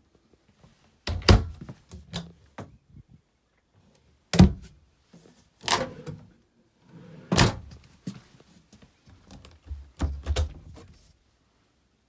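Wood-grain cabinet doors and drawers of an RV bedroom wardrobe being opened and shut by hand: a series of sharp knocks and thunks, spaced one to three seconds apart.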